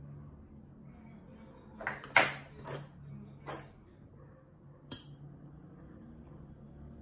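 Fingers scraping and rustling in potting soil inside a glass terrarium jar: a few short scrapes about two seconds in, then a single sharp click of metal tweezers against the glass near five seconds in.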